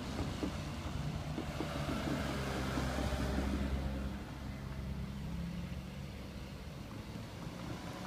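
Cars driving across a railway level crossing, engines running and tyres knocking over the rails in the first second or so. The traffic is loudest about three seconds in.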